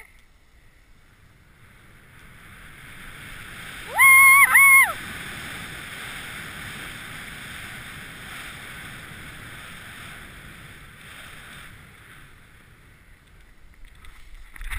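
Snowboard sliding over snow, a steady hiss that builds over the first couple of seconds and fades away about twelve seconds in. About four seconds in, a loud, high-pitched two-part yell rings out over it.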